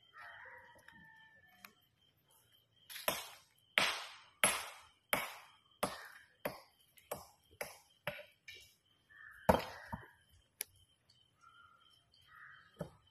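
Hammer blows on stone: a run of about ten sharp, ringing strikes that come faster and lighter, then one harder strike and a last one near the end.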